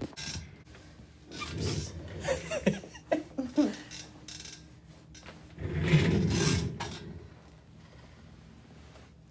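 Rubbing and rasping of a body and clothing shifting against a chiropractic treatment table during an adjustment. The rubbing comes in several bursts, the longest and loudest about six seconds in, with a few short strained vocal sounds from the patient in the middle.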